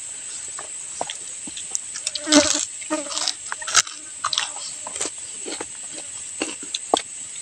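Steady high-pitched drone of forest insects, with scattered crunches and clicks from crispy fried eel being eaten by hand, the loudest crunches a little over two seconds in and near four seconds.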